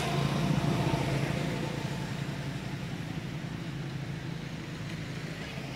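A motor vehicle's engine running steadily, a low drone that is a little louder in the first second and then slowly eases off.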